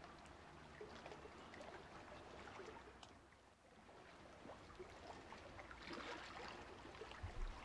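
Near silence: a faint, even hiss with a few weak ticks, dipping softly about three and a half seconds in.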